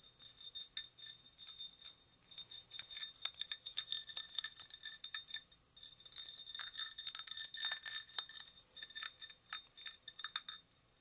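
Fingers and nails tapping and clinking on a textured glass candle holder. Many quick taps each set off a high ring from the glass, with a short pause about halfway through.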